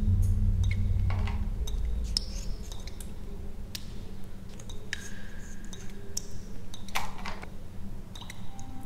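Film soundtrack: a low drone that fades away over the first two seconds, then sparse small clicks and light clinks, with a short high tone near the middle.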